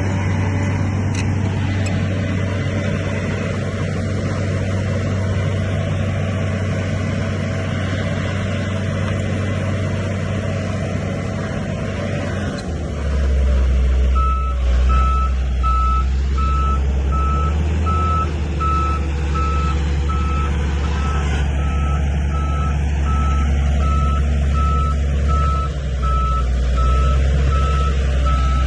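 Heavy earthmoving machine's diesel engine running steadily. About halfway through, its note drops lower and grows louder, and a reversing alarm starts beeping at an even pace.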